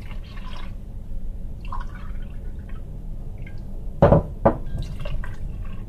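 Milk being poured from a drinking glass into a stainless steel pot of cocoa pudding powder, a soft splashing pour. About four seconds in come two sharp knocks half a second apart, the loudest sounds here.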